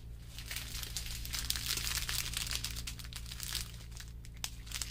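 Small plastic bags of diamond-painting drills crinkling and rustling as they are sorted through and picked up by hand, a dense crackle that is busiest through the middle.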